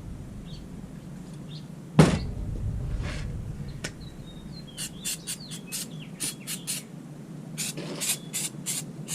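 A sharp knock about two seconds in, then a trigger spray bottle spritzing cleaner in a quick run of short hisses. Faint bird chirps underneath.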